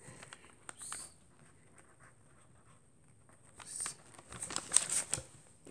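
Pen writing on paper: soft scratching strokes, with louder scratches and taps about a second in and again from about three and a half seconds in.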